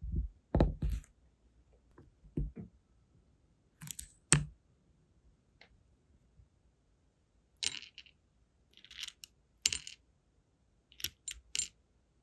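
Separate short taps, clicks and clinks of wax-seal work: a brass seal stamp handled and lifted off the wax on a silicone mat, and small wax beads clinking into a metal melting spoon near the end. The sharpest click comes about four seconds in.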